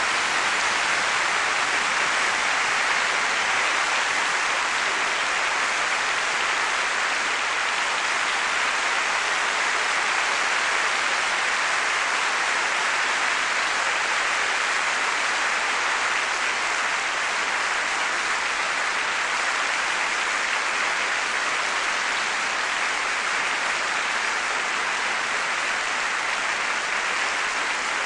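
Concert hall audience applauding steadily at the close of a live piano concerto performance.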